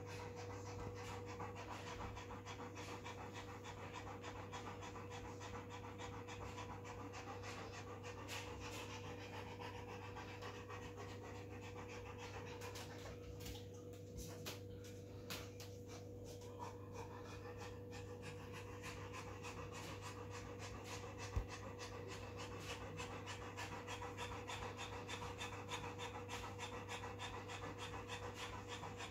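Newfoundland dog panting fast and steadily in first-stage labour, easing briefly about halfway through.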